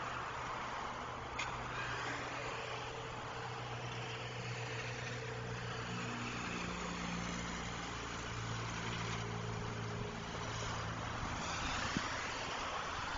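City highway traffic: cars passing with steady tyre noise that swells and fades as each goes by, and the low, steady engine hum of slower or idling vehicles through the middle. A single short click about a second and a half in.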